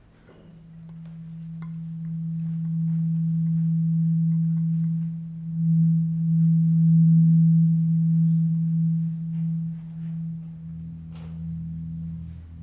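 A steady, low sustained tone that swells over the first few seconds, is loudest around the middle and then eases off, with a second, lower tone joining near the end.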